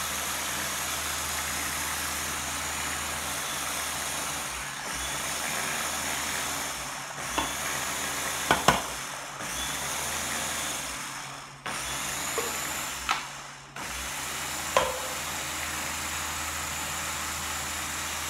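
Small press-top blender motor running as it blends a green smoothie, a steady whirr of blades churning fruit and water. It pauses briefly several times as the top is let up and pressed again, with a few knocks of the jar and lid.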